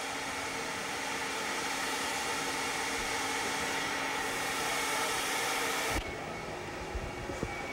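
Steady rushing noise with a faint low hum. It changes abruptly about six seconds in, and a few soft knocks follow.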